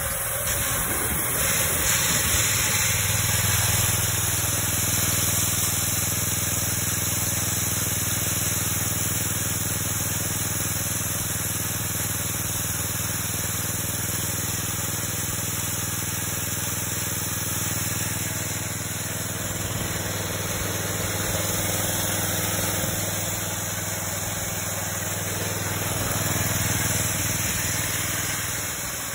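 Homemade 72-inch chainsaw mill running steadily: a small air-cooled gas engine hums under load, belt-driving the long chain through a clutch, while the chain rips through a large log with a constant hiss of cutting.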